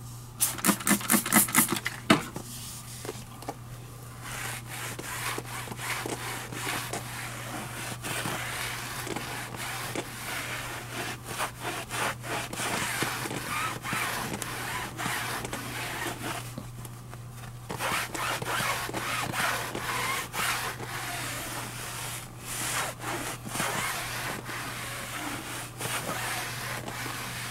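A cloth towel rubbing back and forth over a car tire's rubber sidewall, scrubbing it clean with isopropyl alcohol. It opens with a quick run of louder, sharp strokes in the first couple of seconds.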